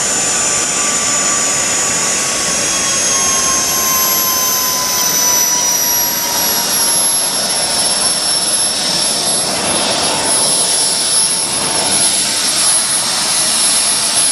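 Wren model jet turbine of a radio-controlled boat running with a steady high-pitched whine over a loud rushing exhaust noise. The whine falls slowly in pitch through the first half, then holds steady.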